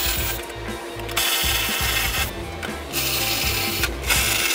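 Hand ratchet wrench loosening the exhaust heat-shield fasteners: four quick bursts of ratcheting, each up to about a second long, with short pauses between.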